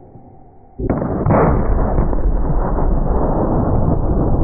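A 1-bore punt gun's shot, slowed down for a slow-motion replay: a sudden boom about a second in, a second blast just after, then a long, loud rumble that does not die away.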